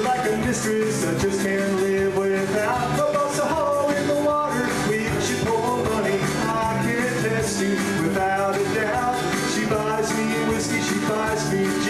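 Live solo performance: an acoustic-electric guitar strummed in a steady rhythm, with a melody line carried over it.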